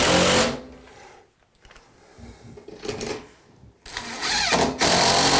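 Cordless DeWalt drill driving screws through a shower door's chrome wall track into the wall, called a noisy drill. It runs briefly at the start, goes quiet, then runs again for a longer stretch near the end.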